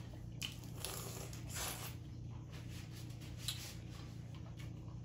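Boiled crawfish being peeled by hand: soft, scattered crackles and wet squishes of shell breaking and pulling apart, over a faint steady low hum.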